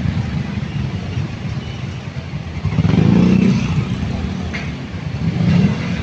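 Heavy street traffic: scooter, motorcycle and car engines running close by, with one nearby engine revving up loudly about three seconds in.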